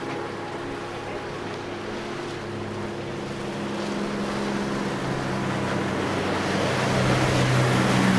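Large sportfish yacht's diesel engines droning at speed, with the rush of hull spray and wake, growing steadily louder as the boat closes in and passes close by.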